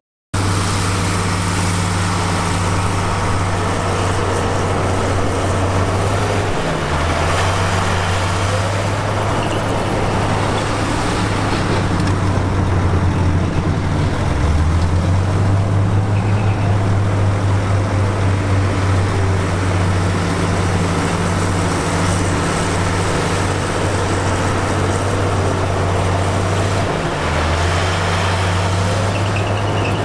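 Heavy diesel engine of earthmoving machinery running under load, a steady deep drone. Its pitch dips and recovers three times as the revs change.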